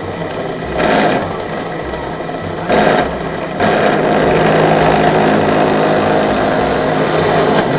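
Small electric power tool running while it bores the large finger holes in a quena, with short louder surges about one and three seconds in as it bites into the material, then cutting steadily and louder from about halfway.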